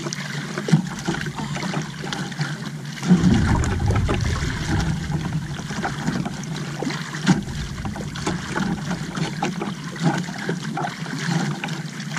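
Seawater lapping and splashing against a small outrigger canoe's hull. A low rumble comes in suddenly about three seconds in and fades a few seconds later.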